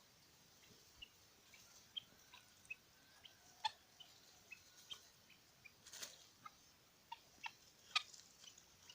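Domestic fowl at feed giving faint, short, irregular peeps and clucks, about two to three a second, with a slightly louder call near six seconds in and another about eight seconds in.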